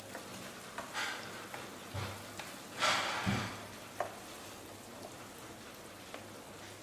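Spoon stirring basil leaves into thick curry sauce in a pan: a few wet scrapes and knocks against the pan in the first four seconds, then only a soft background.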